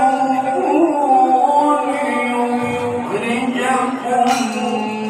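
A male Quran reciter (qari) chanting in the melodic tilawah style through a handheld microphone, holding long, ornamented notes that waver and slide in pitch.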